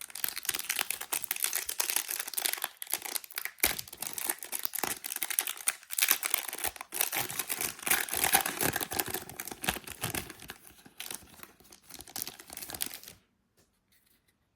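Wrapper of a Prizm basketball trading-card pack being torn open and crinkled: a dense run of small rustles and crackles that stops about thirteen seconds in.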